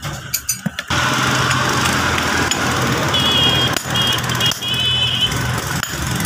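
A motor-driven workshop machine starts up about a second in after a few short knocks, then runs steadily with a low hum.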